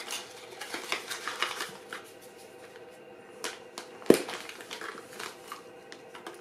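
Hands handling an opened Horizon S3 Pro panoramic film camera while loading film: small clicks and rustles of its parts, with one sharper, louder click about four seconds in.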